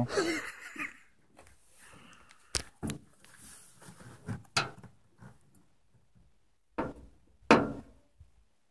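About five short, sharp knocks and taps from hands and a knife against a pickup's steel tailgate while a small squirrel carcass is being cut open, with faint handling noise between; the loudest knock comes near the end.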